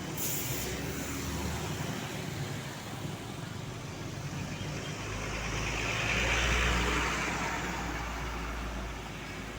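A road vehicle passing by: engine rumble and tyre noise swell to their loudest about six and a half seconds in, then fade. There is a short hiss just after the start.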